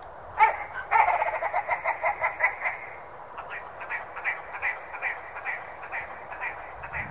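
Red grouse calling: a loud opening note, then a fast stuttering run of croaking notes, about six a second, that slows and fades into a slower 'go-back, go-back' series.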